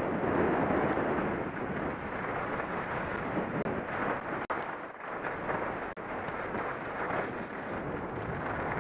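Skis sliding and scraping over packed snow during a downhill run, with wind rushing over the helmet-mounted microphone as a rough, uneven noise. The sound cuts out briefly twice midway.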